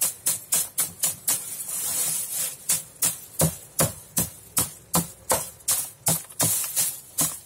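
Dried perilla stalks being beaten in a plastic tub to thresh out the seeds: a steady run of sharp, dry taps about three a second. A brief rustle of dry stems comes about two seconds in. From about halfway, many taps carry a deeper knock off the tub.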